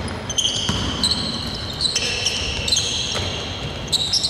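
A basketball being dribbled on a hardwood court, with irregular bounces, over many short, high-pitched squeaks of players' sneakers on the floor that overlap at different pitches.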